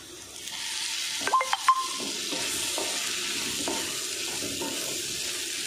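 Lemon juice poured into a hot kadai of potato fry sets off a steady sizzle from about half a second in. A spatula stirs and scrapes the potatoes around the pan, with a few sharp knocks and a brief ring against the pan about a second and a half in.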